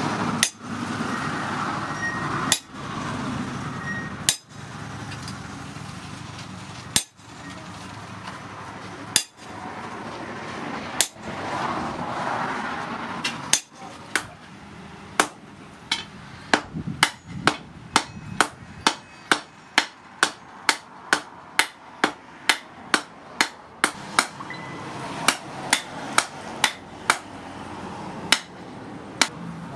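Sledgehammer blows on hot rebar steel on an anvil, each a sharp metallic ring. At first the blows land on a top tool held in tongs against the work, spaced about two seconds apart. From about halfway they come quicker and straight onto the glowing workpiece, about two a second.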